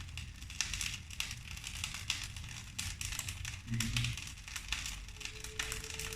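Wood fire in a fireplace crackling, with irregular pops and snaps over a low rumble. A faint steady tone comes in near the end.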